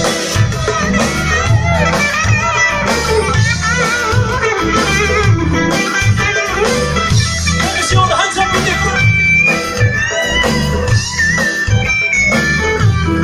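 Live band playing: electric guitars over a drum kit and bass, with a steady beat and a wavering melody line on top.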